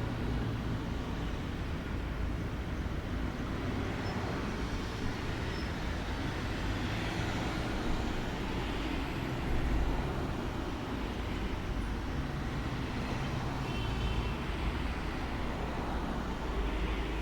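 Steady outdoor background noise: a low rumble with an even hiss over it, with faint short high chirps about four seconds in and again near the end.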